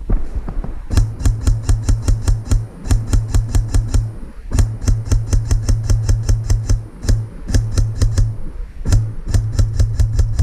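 Airsoft rifle firing rapid strings of shots, several a second, in runs of one to two seconds with short breaks between them, a low steady hum under each string.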